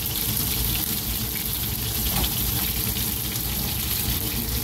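Breadcrumbed breaksea cod and King George whiting fillets sizzling steadily in hot oil in a frying pan.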